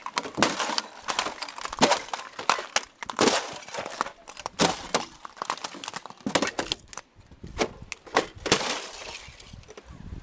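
Glacier ice crunching and cracking: a rapid, irregular run of sharp cracks and clinks.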